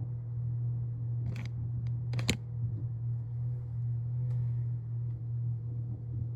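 Vacuum cleaner running, heard as a steady low hum, with two sharp clicks about one and two seconds in.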